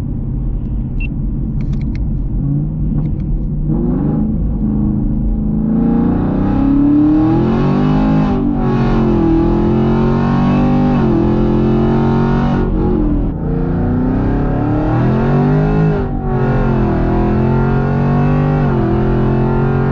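Chevrolet Camaro SS V8 with Kooks long-tube headers, high-flow cats and a Borla ATAK exhaust, heard from inside the cabin under hard acceleration. After a few seconds of low cruising rumble, the engine note climbs in pitch, drops sharply at each of three upshifts, and climbs again.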